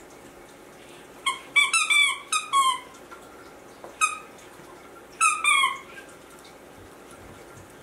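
West Highland White Terrier puppy giving short, high-pitched whining yips at play, each falling in pitch: a quick run of about five, then a single one, then two more.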